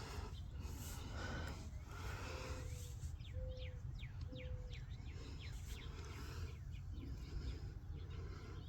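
Birds calling, with runs of quick falling chirps, and three short low notes about a second apart near the start, over a steady low rumble of wind.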